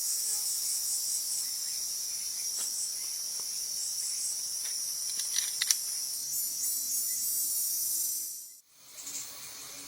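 Steady, high-pitched insect chorus of jungle ambience, with a couple of sharp clicks about five and a half seconds in. It cuts out abruptly near the end, and a quieter hiss follows.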